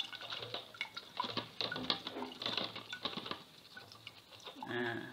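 Wet squelching and crackling of fermented sticky-rice mash being squeezed by hand in a mesh straining bag, with liquid pattering out as the sato rice wine is pressed. A brief voice sound comes just before the end.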